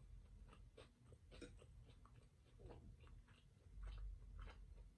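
Faint close-up chewing of tortilla chips: small crunches and mouth clicks, about two a second.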